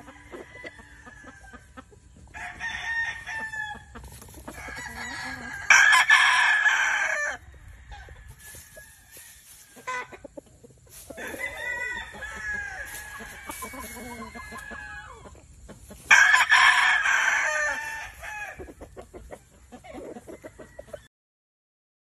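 Rooster crowing twice, about six seconds in and again near sixteen seconds, with softer clucks and calls between the crows and short clicks from the straw. The sound stops about a second before the end.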